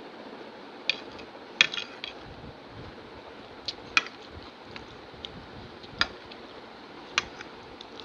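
Metal spoon clinking against a ceramic plate while scooping and breaking dahi puri: about half a dozen sharp, separate clinks, the loudest about one and a half seconds in, over a steady background hiss.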